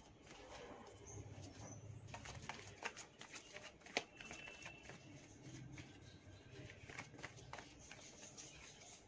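Deck of tarot cards shuffled by hand: a quiet run of soft flicks and taps as the cards slide against each other, with one sharper click about four seconds in.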